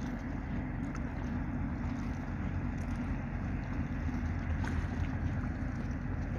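Low, steady drone of a passing tanker ship's engine.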